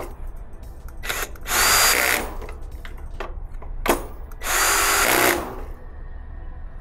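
Ryobi 18V ONE+ cordless drill/driver running in two short bursts, about a second and a half in and again near the middle, driving the screws that mount an AC contactor. Short sharp clicks come just before each burst.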